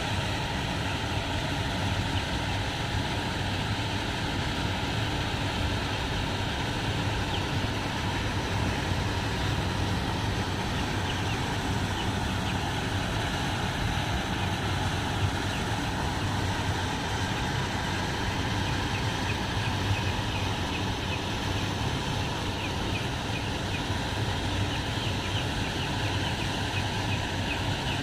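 A flock of six-day-old chicks peeping continuously in a brooder, many short high cheeps overlapping, over a steady low hum.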